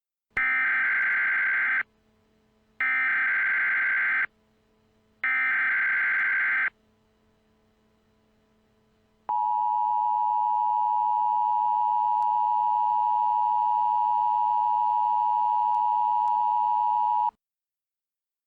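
Emergency Alert System tones: three bursts of screeching digital header data, each about a second and a half long, then the EAS attention signal. The attention signal is a steady two-tone beep held about eight seconds that cuts off suddenly, announcing an emergency alert message.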